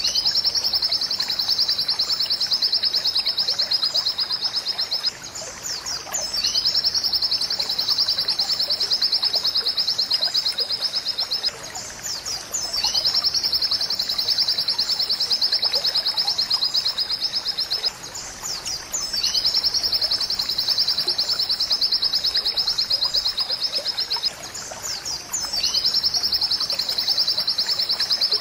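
White-eye (pleci) singing a 'ChaCha' song: a long, fast, high trill of about five seconds, repeated five times with short pauses between, each pause holding a few brief rising notes.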